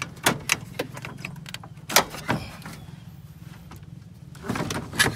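A 2006 Nissan Pathfinder radiator, with plastic end tanks, knocking and scraping against the engine bay as it is worked up and out by hand. The knocks are irregular and sharp: several in the first second, two loud ones about two seconds in, and a cluster near the end.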